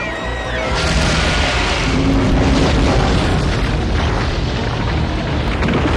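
A deep rumbling boom with a loud rushing noise that swells about a second in and holds, over music.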